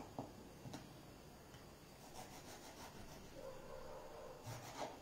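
A kitchen knife cutting a small yellow tomato on a wooden cutting board: a few light taps of the blade on the board near the start, then faint sawing strokes through the tomato.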